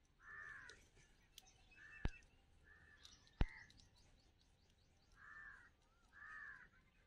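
A crow cawing about six times, short arched calls spread through the clip, with two sharp clicks a little over a second apart near the middle that are the loudest sounds.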